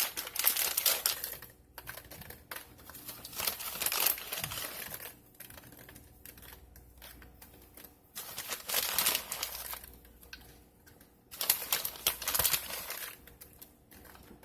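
Pecans being poured from a crinkling plastic bag: rustling with rapid small clicks, in four spells with quiet pauses between.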